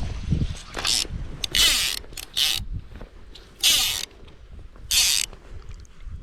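Fly line being pulled out in five short zipping pulls, stripped off the fly reel and through the rod's guides ready to cast.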